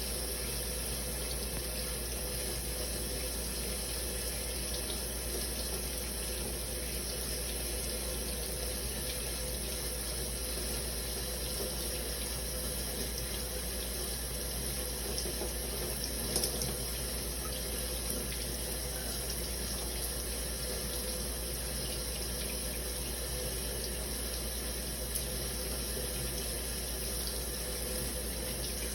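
Shower running steadily, a continuous spray of falling water.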